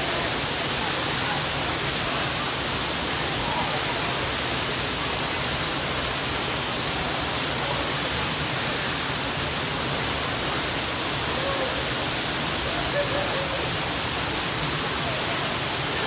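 Waterfall pouring into a plunge pool: a steady, dense rush of falling water, with faint voices of people now and then.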